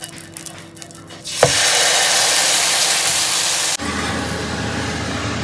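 Frying sizzle from a jowar paratha cooking on an oiled tawa. After a quiet start with light brushing clicks, loud sizzling sets in suddenly about a second and a half in. About a second and a half before the end it drops to a softer sizzle over a low steady hum.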